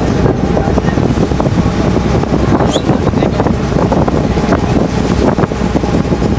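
Passenger ferry's engine running with a steady low drone, mixed with wind noise on the microphone.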